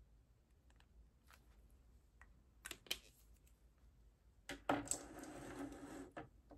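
Light clicks and taps of pens being capped and set down on a desk, two sharper ones about three seconds in, then about a second and a half of rustling as the clear plastic pages of a ring binder are handled.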